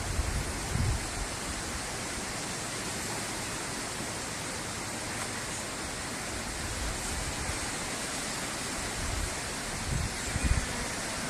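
Steady, even hiss of outdoor background noise with no tone or rhythm in it, and a few brief low rumbles of wind on the microphone near the start and about ten seconds in.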